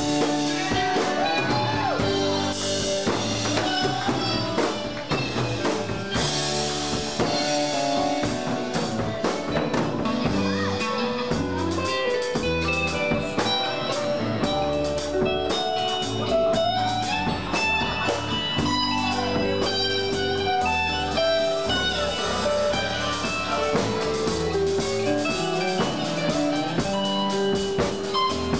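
Live rock band playing an instrumental passage: electric guitar melody lines, with a few bent notes just after the start, over bass, drum kit and steady cymbals.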